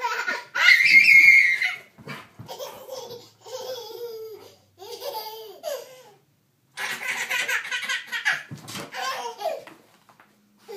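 A baby laughing in bursts. It opens with a loud high squeal, breaks into shorter giggles, then gives a long run of rapid belly laughter about seven seconds in.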